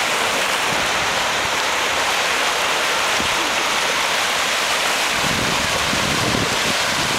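Steady rushing hiss of small waves breaking and washing onto a sandy shore, with some wind rumble on the microphone in the second half.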